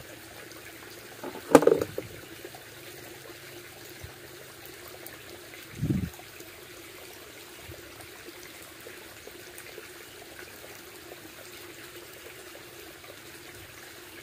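Small stream trickling and flowing steadily, with a sharp knock about one and a half seconds in and a short low thump around six seconds in.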